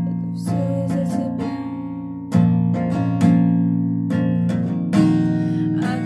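Acoustic guitar with a capo, strummed chords ringing on; the strums come in harder a little over two seconds in and again near five seconds.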